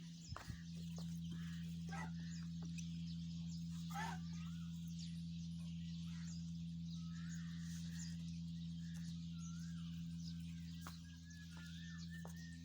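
Small birds chirping in short wavy calls over a steady low electrical hum, with a few scattered clicks.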